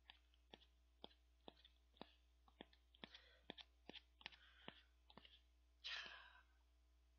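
Metal spoon clicking and scraping against the inside of a large cardboard ice-cream tub as the last of the ice cream is dug out from near the bottom: about two sharp clicks a second, with short scraping rubs between them. About six seconds in there is one louder, short breath.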